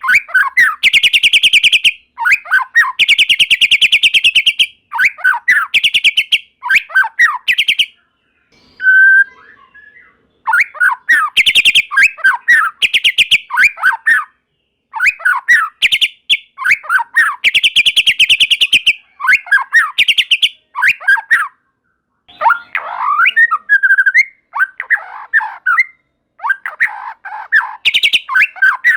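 White-rumped shama singing hard: loud bursts of very fast, rattling repeated notes alternating with short gliding whistles, broken by brief pauses.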